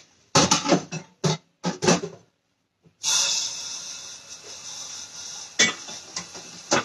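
A few short clattering knocks, then, about three seconds in, a kitchen sink tap turned on, the water running with a steady hiss that slowly eases.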